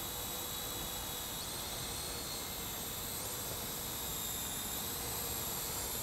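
Parrot AR.Drone 2.0 quadcopter in flight: its four electric motors and propellers give a steady high whine over a rushing hiss, shifting slightly in pitch twice.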